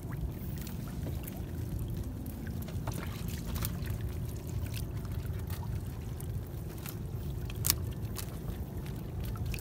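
Seawater sloshing and dripping as a wet gill net is hauled over the side of a small boat, with scattered light clicks throughout.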